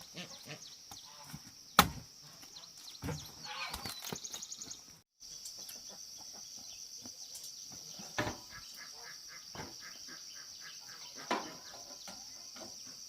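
Steady high-pitched drone of insects buzzing, with a few sharp knocks over it, the loudest about two seconds in.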